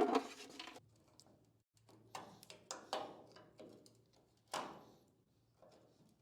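Hand work on stuck exterior trim clips on a pickup's body: a series of sharp clacks and scrapes, the loudest at the start, more around two to three seconds in and another sharp one about four and a half seconds in. The clips are stuck and won't release.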